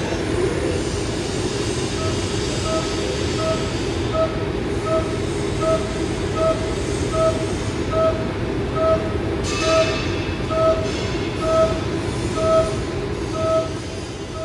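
Haas VF2 SuperSpeed vertical machining centre high-speed roughing 4140 pre-hardened alloy steel with a 5-flute end mill at 9664 RPM. The machine and cut make a steady loud noise, with a short pitched cutting note that pulses just under once a second from about two seconds in.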